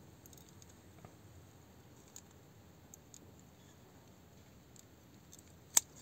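Pruning shears snipping berries out of a tight grape cluster to thin it: a few faint clicks, then one sharp snip near the end.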